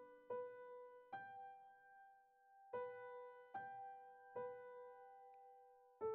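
Quiet background music: slow single keyboard notes, each struck and left to fade, with a pause of about a second and a half near the middle.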